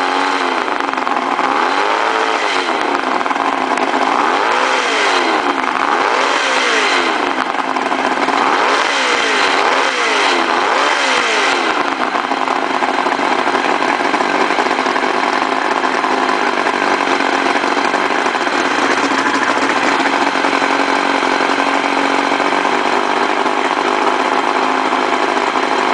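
Mercury 1150 inline-six two-stroke outboard engine running, revved up and back down about six times in quick succession in the first half, then held at a steady speed.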